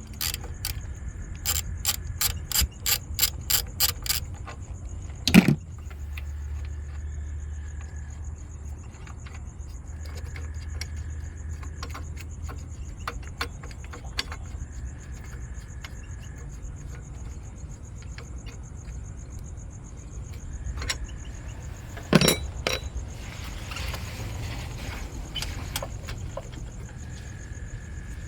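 A ratchet wrench clicking in a quick run of strokes, then a sharp metallic knock. A second knock comes later, with a faint high chirp coming and going and a low hum underneath.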